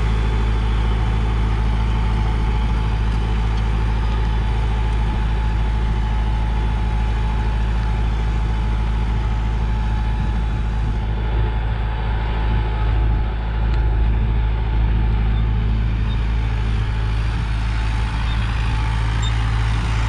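Preet 6049 Agritrac tractor's diesel engine running steadily under load while it pulls a 9x9 harrow through tilled soil.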